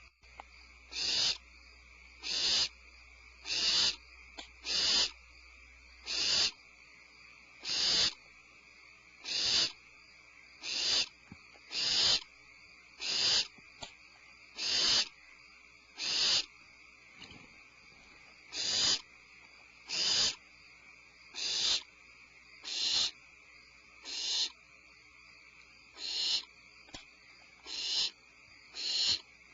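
Barn owl giving short, hiccup-like calls over and over, about one every second and a half, with a brief pause midway.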